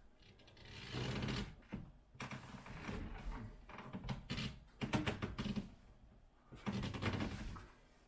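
Doorframe pull-up bar creaking and clicking in the door frame under a man's body weight during wide-grip pull-ups, with hard breaths. The sound comes in about four bursts of effort.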